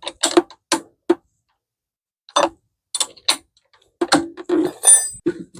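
Wrench clicking in short, uneven strokes as a nut is tightened, with a pause partway through and quicker clicks near the end, ending in a ringing metallic clink.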